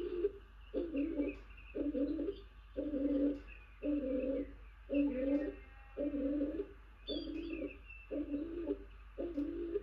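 Stock dove calling over and over: a steady run of low, two-part coos, a little more than one a second. A persistent bird, presumably a male, still advertising the nest box as a nest site.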